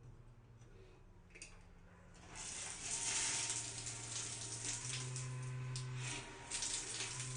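Water starts spraying from a shower head about two seconds in, a steady hiss, over a low steady hum.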